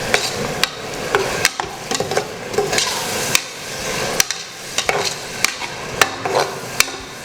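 A metal spoon stirring and scraping against steel cookware, with irregular sharp clinks over a light sizzle of masala cooking.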